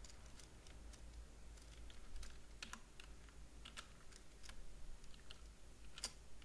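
Computer keyboard keystrokes, faint and scattered, a few clicks at a time with pauses between, as a line of C# code is typed.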